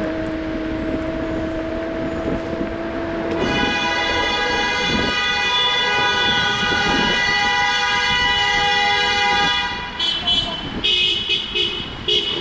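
A steady whine, rising slightly, for about three seconds. Then a vehicle horn sounds in one long steady blast of about six seconds, followed by several short toots near the end.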